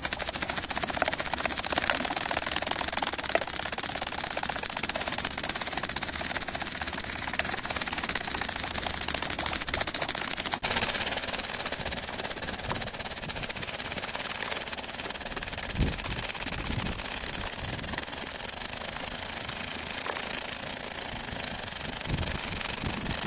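Pipers Precision Products Airpower gatling gun firing continuously: a dense, rapid rattle of shots. It gets suddenly louder and sharper about ten seconds in.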